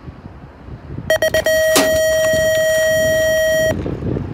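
BMX start gate (Fresh Park gate with YellowCat Snap timer) running its start sequence: a few quick beeps, then one long steady tone of about two seconds that cuts off suddenly. A sharp metallic bang just after the long tone begins is the gate dropping to release the rider.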